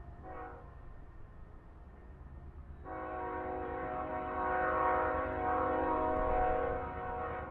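Diesel freight locomotive's air horn sounding one long, steady multi-tone blast that begins about three seconds in and is held for over four seconds, over a low steady rumble. A brief, fainter tone comes just after the start.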